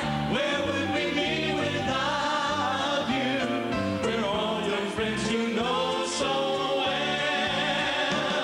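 Gospel vocal group singing a song together with band accompaniment, the voices sliding between held notes over a moving bass line.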